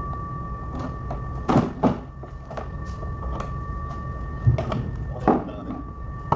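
Hollow knocks and clunks of a detached bus front corner panel being handled and set down on a concrete floor: two about a second and a half in, then three more in quick succession past the middle. Underneath runs a steady low hum with a thin, steady high whine.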